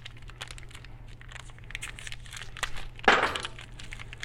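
Hands handling small engine parts at a workbench: light scattered clicks and rustling, with one louder rustling scrape about three seconds in, over a steady low hum.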